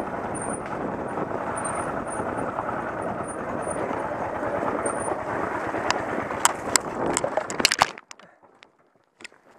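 Off-road motorcycle engine running steadily as the bike rides down a rough dirt trail. Sharp knocks and clatter come in from about six seconds, then the engine sound cuts off abruptly near eight seconds as the bike falls, leaving near silence with a few knocks.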